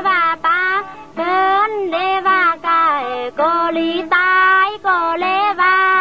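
Tai Lue khap song: a high melody of held, gliding notes broken by short pauses.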